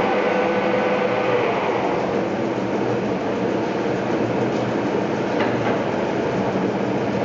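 TOS Trenčín SN 500 SA engine lathe running, its spindle and gearbox giving a steady mechanical drone, with a faint steady tone that fades out about a second and a half in.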